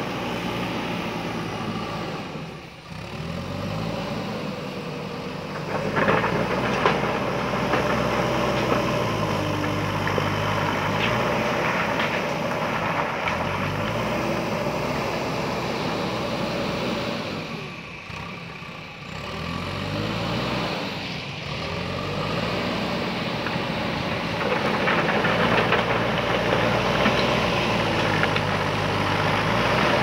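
JCB backhoe loader's diesel engine revving up and down as the front loader bucket works a pile of stones, dropping back twice before climbing again. Stones knock and scrape against the bucket at times, most busily near the end.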